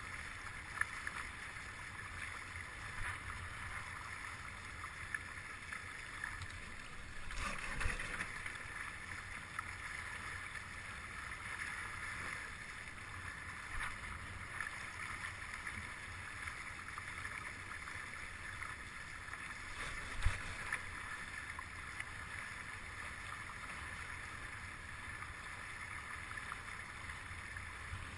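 Water hissing and rushing along the hulls of a small S.9 sailing catamaran under way, with wind rumbling on the onboard microphone. A louder surge of water comes about seven seconds in, and there is a short knock about twenty seconds in.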